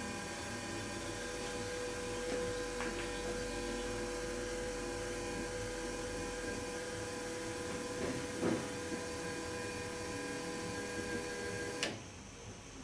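Fuel injector test bench running a flow test, six injectors spraying test fluid into graduated cylinders: a steady mechanical hum with several held tones over a spray hiss. It cuts off suddenly near the end.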